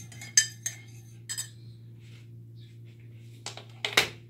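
Metal teaspoon stirring coffee in a ceramic mug, clinking against the side a few times in the first second and a half. Near the end come two sharper knocks, the second the loudest, over a steady low hum.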